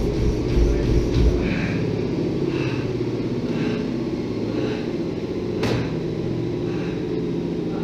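Treadmill running, with a runner's footfalls thudding on the belt until about a second in, when he steps off onto the side rails. Then there are heavy panting breaths about once a second over the treadmill's steady hum, the sound of exhaustion at the end of a maximal running test, and a single sharp click later on.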